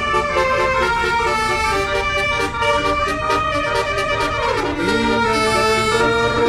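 Indonesian bus 'telolet' multi-tone horn playing a stepping melody of held trumpet-like notes, the whole chord sliding down in pitch about four and a half seconds in before settling on new held notes, over a low rumble.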